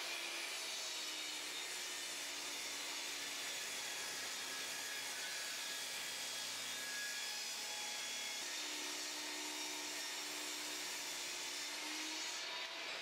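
Skilsaw table saw running with its blade tilted to 15 degrees, bevel-ripping a 2x4 lengthwise: a steady whine of the motor and blade cutting through the wood.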